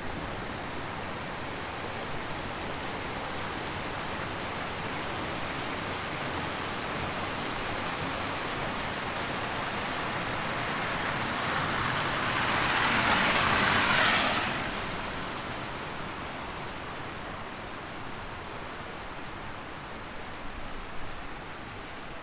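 A vehicle driving past on a wet, slushy street: a tyre hiss with no engine note, growing slowly louder to a peak about 13 seconds in, then fading quickly.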